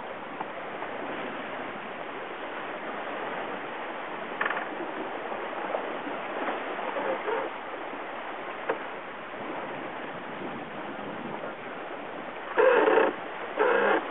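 Steady rush of wind and water on a racing yacht under way, with a couple of short, loud sounds near the end.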